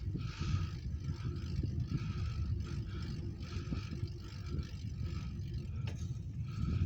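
Wind buffeting the microphone and tyre rumble from a mountain bike being ridden on a road, with a higher hiss that swells and fades about once a second.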